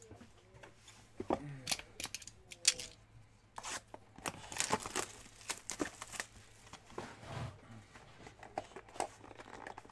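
A sealed trading card box being unwrapped and opened by hand: plastic wrap torn and crinkled, with cardboard scraping and small clicks, densest about four to six seconds in.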